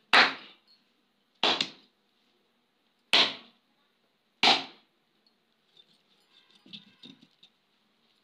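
Knife chopping raw duck on a wooden board: four sharp chops about a second and a half apart, then a run of lighter knocks and clicks as the pieces are handled.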